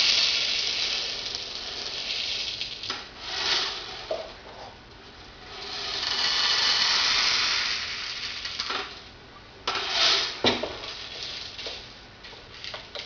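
A mass of loose airsoft BBs pouring and rattling out of a bin into a container, in rushing swells with scattered clicks and a few sharper knocks.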